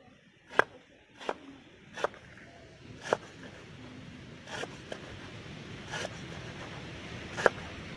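Cleaver slicing lemongrass stalks on a wooden chopping board: about eight sharp, irregularly spaced knocks of the blade against the wood, the first and last the loudest.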